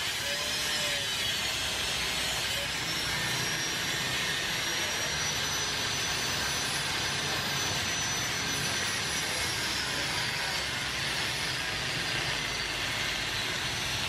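Electric angle grinder cutting into a motorcycle's steel engine-mount bracket: a steady grinding hiss with a high whine over it.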